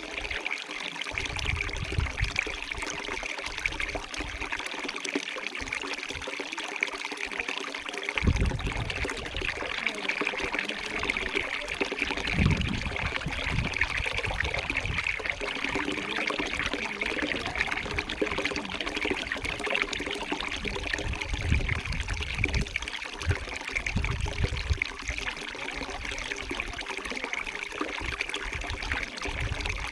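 Small stream of water trickling and flowing steadily.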